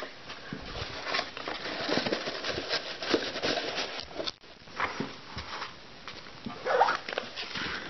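Paper and cardboard packaging being handled: tissue paper rustling and crinkling, with light taps and clicks as small cardboard box pieces are picked up and knock together.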